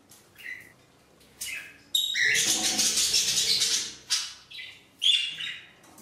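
Pet parrots, budgerigars among them, chirping: a few short chirps, then about two seconds of loud, dense chattering, then more short chirps near the end.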